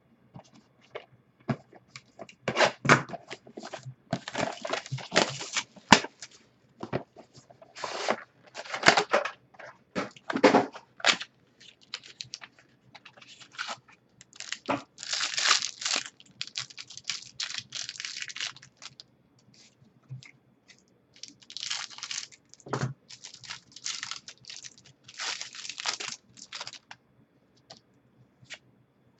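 Trading card packaging being torn open and handled: irregular bursts of tearing and crinkling wrapper, with cards rustling as they are sorted.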